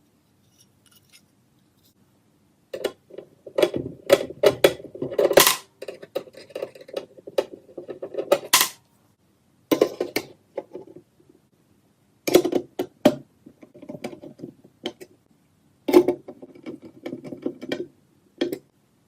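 Hard objects being handled on a work surface: clusters of sharp clicks, knocks and rattling that come and go in four bursts after a quiet start.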